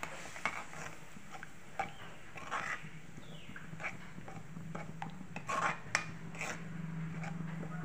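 Metal spatula stirring a wet yogurt-and-masala paste in a steel kadai, with irregular clicks and scrapes against the pan and a couple of louder clatters past the middle. A low steady hum sits underneath.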